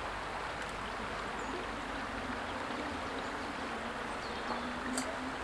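River water running past a gravel bank, a steady even rushing.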